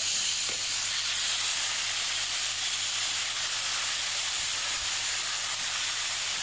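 Matchstick-cut potatoes with onion and green chillies frying in oil in a kadai: a steady sizzle.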